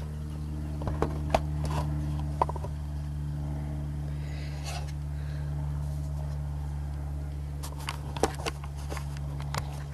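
Sharp clicks and scrapes of fingers working at the plastic indicator bulb holder behind the headlight, trying to twist it loose, a few about one to two and a half seconds in and more near the end. Under them runs a steady low hum.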